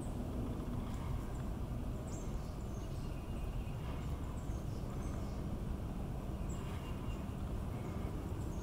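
Steady low rumble with faint, scattered high bird chirps.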